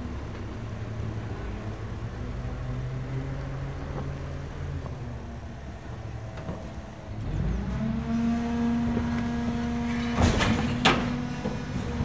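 Garbage truck engine running at a low, steady idle. About seven seconds in, it rises in pitch and holds at a higher steady hum as it is revved up, and two loud knocks come close together near the end.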